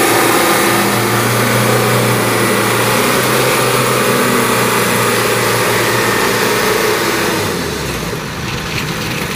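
Kubota combine harvester's engine running steadily as the tracked machine is driven over a ramp bridge; about three quarters of the way through the revs drop and the engine note falls.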